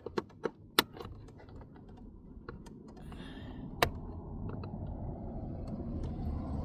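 Sharp plastic clicks and taps as hands work the power-window switch's electrical connector loose from a car door panel: a quick run of clicks in the first second, lighter ticks after, and one loud click about four seconds in.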